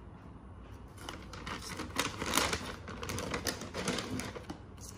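Brown packing paper rustling and crinkling as it is pulled back inside a cardboard shoe box, with many small crackles. It starts about a second in and is busiest around the middle.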